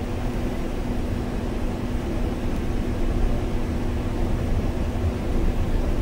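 Cab interior sound of a MAN Lion's City biogas city bus driving on a snow-covered road: steady engine and tyre rumble with a constant low hum, getting a little louder about two seconds in.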